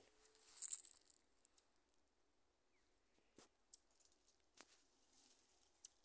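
Near silence: faint background ambience with a short hiss about half a second in and a few faint scattered clicks.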